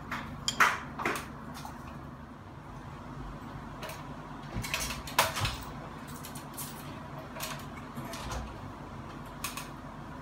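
Intermittent clicks, clinks and knocks of hand tools and metal mounting hardware being handled during ceiling-fan installation, with a cluster of them about five seconds in, over a steady low hum.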